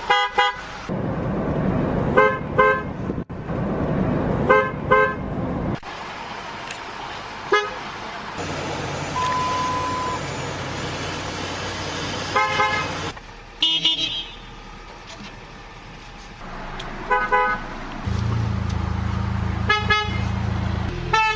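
Car horns of several different cars sounding in turn (an Acura, a Lincoln, a Dodge Ram), each giving short toots, often in pairs, every couple of seconds over a steady engine hum inside the cabin. A brief steady beep sounds about nine seconds in.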